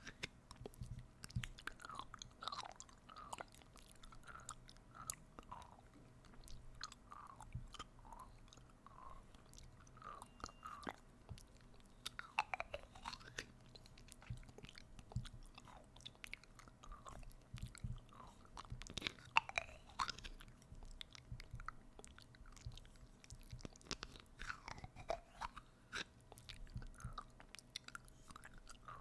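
Close-miked ASMR mouth sounds: wet lip smacks, tongue clicks and sucking noises in quick irregular succession, acting out eating.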